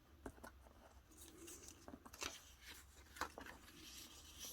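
Faint rustling of paper cut-outs being handled, with a few light taps and clicks as the pieces are moved about on a journal cover.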